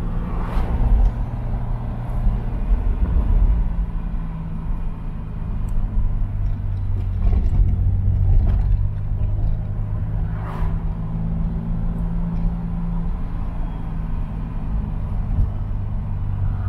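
The 3.6-litre S38B36 inline-six of a 1975 BMW 530i running under way, heard from inside the cabin as a steady low drone with road noise. A few short rushing sounds break in, one near the start, one around the middle and one near the end.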